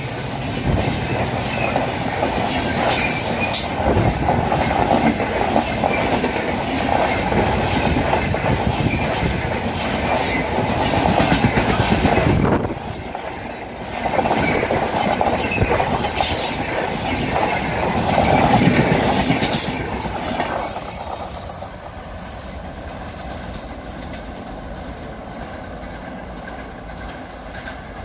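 Coaches of a Rajdhani Express train rushing past at full speed close by: steady loud wheel-and-rail noise with a rush of air. About three-quarters through, it drops away to a quieter steady rumble.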